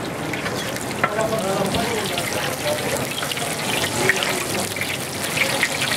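Chapli kebab patties deep-frying in a large iron pan of hot oil, sizzling and crackling steadily.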